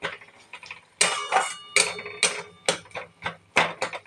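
Flat spatula scraping and stirring a thick tomato-onion masala against the side of a metal kadhai. The strokes come quickly and rhythmically, about two to three a second, starting about a second in.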